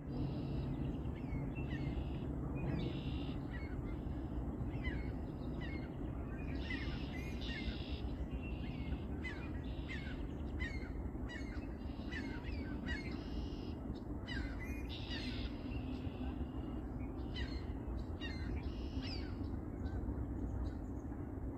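Many birds calling over and over in quick succession, as from a large flock, over a steady low background rumble.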